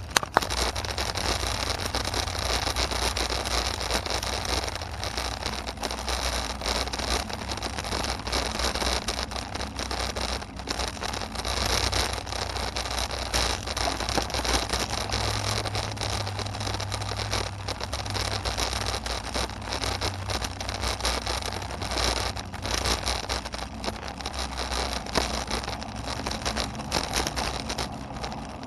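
Steady road traffic noise: a continuous low rumble under an even hiss.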